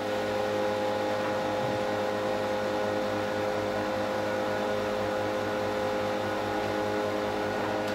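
Metabo HC 260 planer-jointer running steadily without cutting: an even motor hum with several constant tones over a whir of noise.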